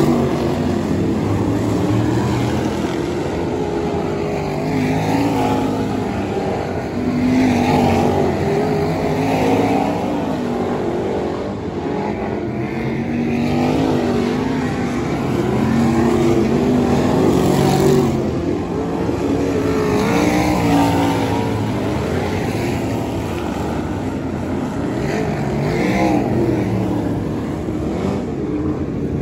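A field of winged 360 sprint cars racing on a dirt oval, their V8 engines running loud together. The pitch keeps rising and falling as the cars circle and pass close by.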